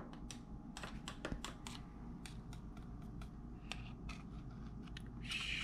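Light, irregular clicks and scrapes of a metal measuring spoon and a table knife knocking against each other and a plastic tub while cocoa powder is scooped and levelled off.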